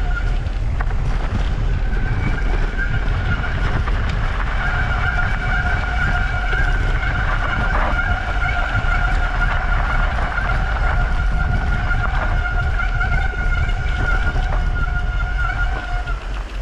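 Mountain bike riding fast along a dirt singletrack: heavy wind and trail rumble, with a steady high whine from the bike that grows stronger about four seconds in and fades out near the end.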